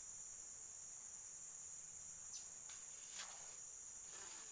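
A steady, high-pitched chirring of insects, with a few brief faint clicks about halfway through and near the end.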